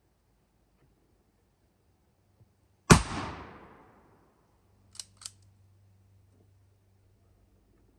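A single shot from a Southern Cross Small Arms Taipan Light pump-action rifle in .223 Wylde, with an echo that dies away over about a second. About two seconds later come two quick clacks, the pump action being slid back and forward to cycle the next round.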